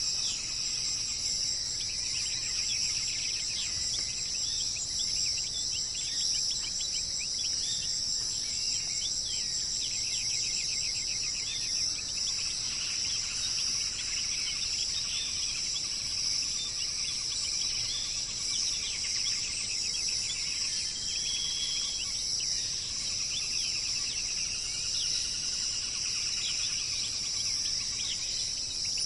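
Songbirds singing in quick trills and chirps over a steady, high-pitched chorus of insects.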